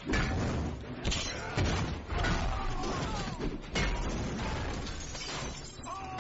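Movie fight-scene sound effects: a string of heavy hits and crashes, about one a second, with shattering among them and a few sliding tones between the strikes.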